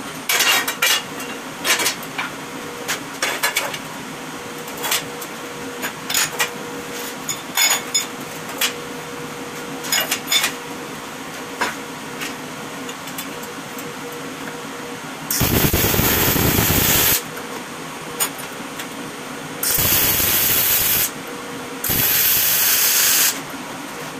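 Electric welding on steel profile pipe: scattered crackles and pops over a steady hum for the first fifteen seconds or so, then three loud bursts of steady sizzling, each a second or two long, like short weld runs.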